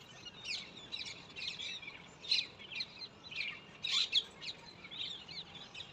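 Several small birds chirping, a busy, overlapping run of short high chirps, many sweeping down in pitch, several a second.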